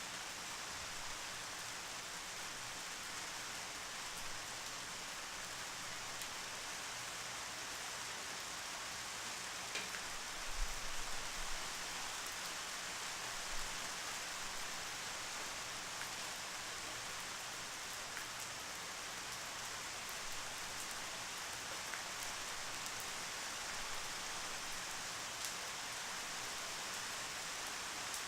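Steady rainfall, an even hiss of drops on a surface. A few soft low thumps come about ten to fourteen seconds in.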